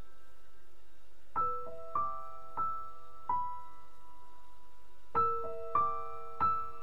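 Background music: slow solo piano, single notes struck about every half second in two short phrases, each left to ring.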